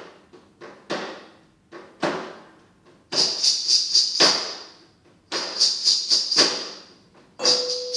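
Metal bars on a wooden-box percussion instrument struck with thin sticks. A few single strikes ring and die away, then come two runs of quick strikes with a bright metallic shimmer.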